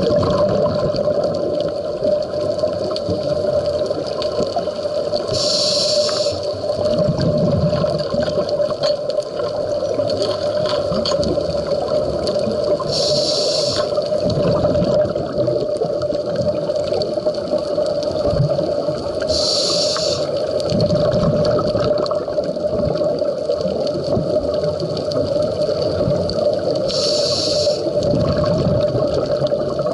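A scuba diver breathing through a regulator, heard underwater: four short hisses of inhalation about seven seconds apart, each followed by low bubbling as the exhaled air escapes, over a steady hum.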